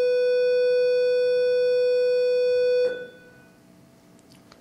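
A loud, steady electronic buzzer tone, one held note that cuts off suddenly about three seconds in.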